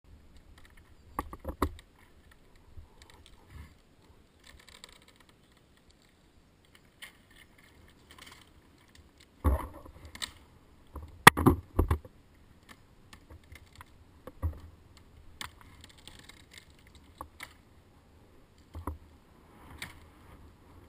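Scattered clicks, knocks and rustles of a tree climber's gear being handled: rope and metal carabiners. The loudest cluster of knocks comes a little past halfway.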